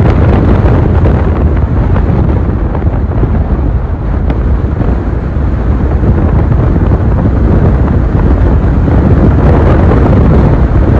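Strong wind buffeting the microphone: a loud, continuous, gusting rumble with no pitch.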